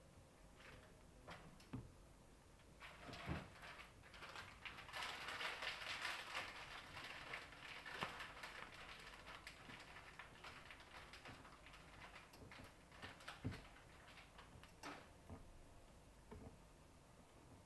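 Faint, irregular crackling and ticking from a metal pan heating on a stove burner as the butter in it melts. It is thickest for several seconds from about three seconds in, with a few sharper clicks scattered through.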